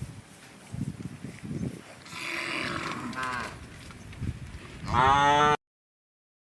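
Cattle mooing: a shorter moo about three seconds in, then a louder, longer moo near the end that cuts off abruptly.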